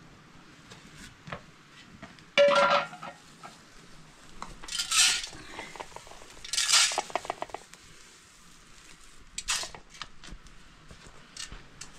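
A metal pan with grain in it being handled. A sharp ringing clank comes about two and a half seconds in, then two rattling, scraping bursts, with a few lighter clicks near the end.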